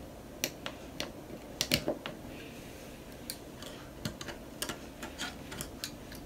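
Small plastic Lego pieces clicking and tapping against each other as they are handled, in irregular sharp clicks, more than a dozen spread unevenly.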